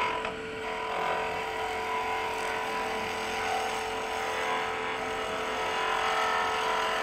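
Wood lathe running with a steady whine while a skew chisel takes a planing cut along a spinning spindle, its bevel floated on the wood, with a soft hiss of fine shavings coming off.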